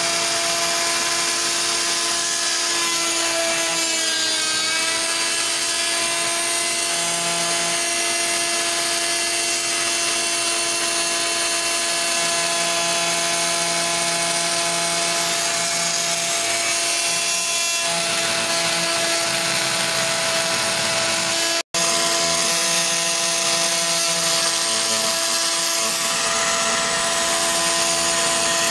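Handheld electric cutoff tool with a diamond-enhanced grout blade running steadily while cutting out a grout line between ceramic floor tiles. Its whine sags in pitch for a moment about four seconds in as the blade loads, and the sound breaks off for an instant about two-thirds of the way through.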